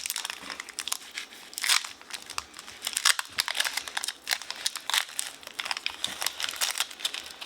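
Foil Pokémon booster pack wrapper crinkling and crackling in the hands as it is opened, in many quick irregular crackles.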